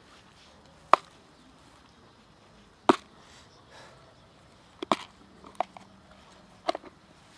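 Sharp plastic clicks and snaps from a clip-lock plastic food container being handled, its lid and latch flaps snapping, about five separate clicks with two close pairs.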